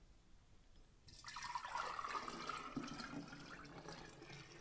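Whey pouring in a steady stream from a ceramic bowl through a stainless steel funnel into a glass mason jar, starting about a second in.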